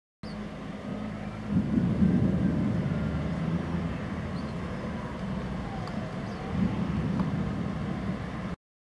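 Thunder rumbling, rolling in two swells, about a second and a half in and again near seven seconds.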